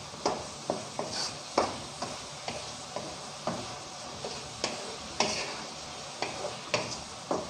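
Wooden spatula stirring ground beef in a wok over a gas flame: irregular scrapes and taps against the pan about twice a second, over a low sizzle of the browning meat.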